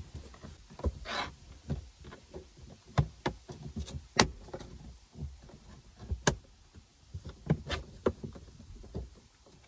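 Plastic dashboard side trim panel of a 2006 Subaru Outback being fitted back on by hand: irregular clicks, taps and knocks of plastic on plastic as its clips are lined up and pressed into place. A short scrape comes about a second in.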